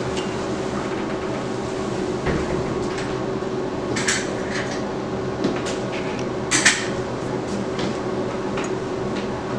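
Steel surgical instruments clinking now and then, with two louder clinks past the middle, over a steady hum of operating-room equipment.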